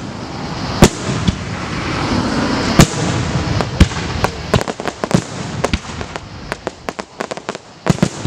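Aerial firework shells bursting in quick, uneven succession: sharp booms, the loudest about a second in, near three seconds in and near the end, with many smaller pops and crackles in between.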